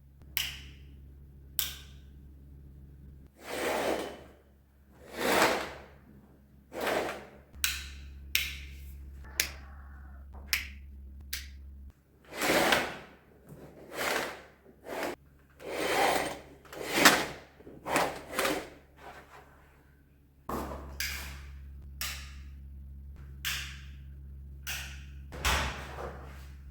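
A string of sharp knocks and clicks mixed with short rustling or scraping swells, as of things being handled and set down, over a steady low hum.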